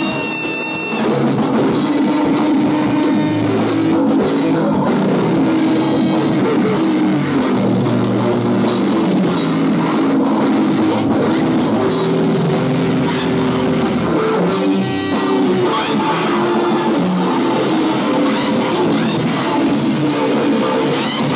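A live rock band playing loud: distorted electric guitar, electric bass and drum kit. The full band comes in hard about a second in.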